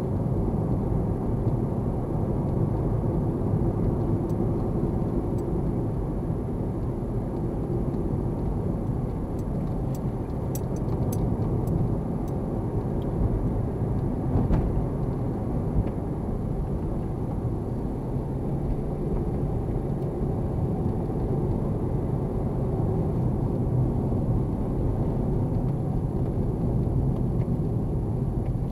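A car driving, heard from inside the cabin: steady engine and tyre rumble.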